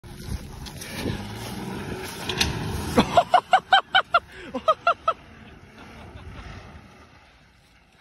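Nissan Xterra engine, which has a rod knock, running as the SUV drives away through grass, with clicking and rattling over the first few seconds and then fading. A person's voice cuts in about three seconds in with a quick run of about nine high, arched cries over two seconds, the loudest thing heard.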